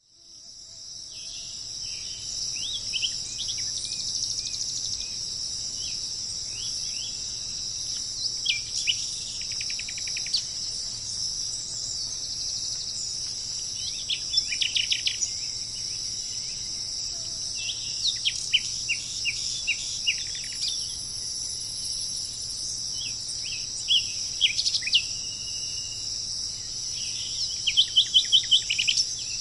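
Tropical forest ambience: a steady, high-pitched insect drone with birds calling over it in short bursts of quick chirps and falling notes, about half a dozen times. It fades in over the first couple of seconds.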